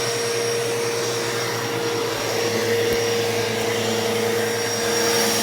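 Eureka The Boss Victory upright vacuum cleaner running steadily, a constant hum with a high whine on top. It sounds rough, though the motor itself sounds good.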